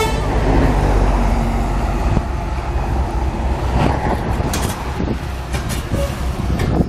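Road maintenance truck's engine running with a steady low rumble. Shovels scrape and knock on broken asphalt a few times, mostly in the second half.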